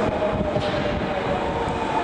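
Osaka Metro 21 series subway train approaching the platform: steady running noise with a whine that slowly falls in pitch as it slows into the station.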